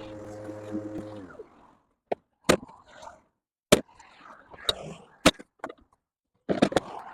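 Battery lawn mower's electric motor running steadily, then winding down and stopping a little over a second in. Several sharp clicks and knocks follow.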